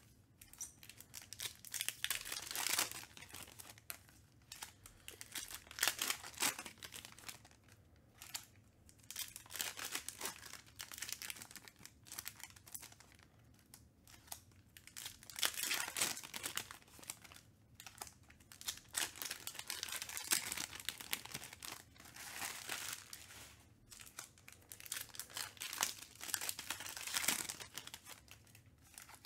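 Foil trading-card pack wrappers being torn open and crinkled by hand, with cards slid out and sorted onto a stack: irregular bursts of crinkling and rustling.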